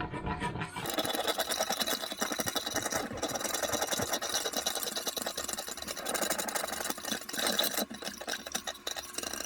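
Wooden spoon scraping the browned bits off the bottom of a stainless steel pressure-cooker pot during deglazing, over a dense crackle of hot broth bubbling that thickens about a second in.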